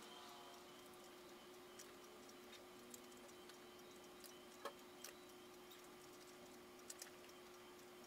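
Near silence: room tone with a faint steady hum and a few faint, irregular clicks, the clearest a little past the middle.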